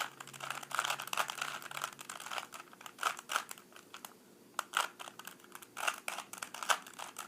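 Rubik's cube being turned by hand: quick, irregular clicks and clacks of its plastic layers rotating, with a brief lull about halfway through.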